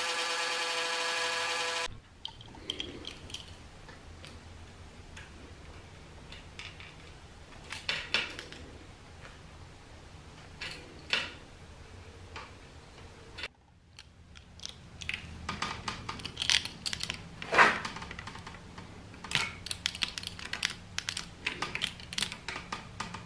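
A handheld blow dryer runs with a steady whine for about the first two seconds and then cuts off. After that, a spline roller tool pressing rubber spline into an aluminium screen-door frame's channel makes scattered clicks and scrapes, the sharpest ones in the second half.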